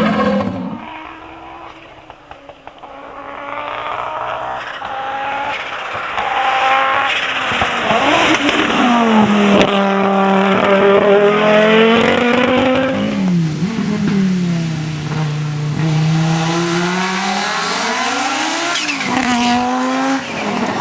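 Audi Sport Quattro S1 E2 Group B rally car, its turbocharged five-cylinder engine coming closer and getting louder, then revving hard. The pitch climbs and drops several times through gear changes and lifts.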